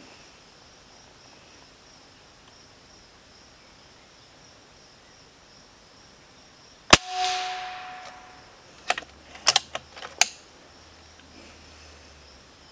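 A single shot from a Benjamin Bulldog M257 pre-charged pneumatic air rifle about seven seconds in: a sharp crack followed by a hissing, ringing tail of about a second. Two to three seconds later come a few sharp mechanical clicks, over a steady faint high buzz of insects.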